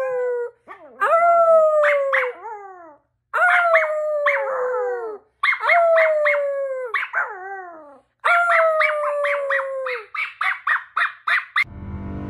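A small long-coated dog and a woman howling together: about five long falling howls, each a second or two, with quick yips between them. Music cuts in near the end.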